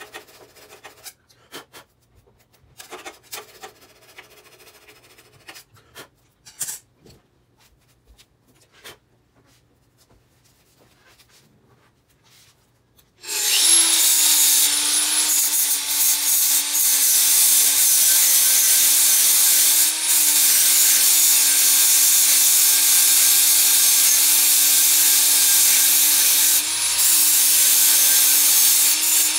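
Faint clicks and scraping from hand work, then about 13 seconds in a corded angle grinder starts and runs steadily against the stainless-steel muffler, grinding down the solder patches with a steady motor whine and loud hiss.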